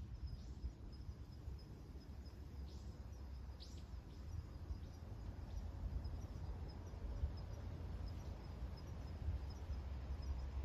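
Wind rumbling on the microphone, with an insect chirping steadily in a high, even pulse throughout. A few short bird calls come in the first four seconds.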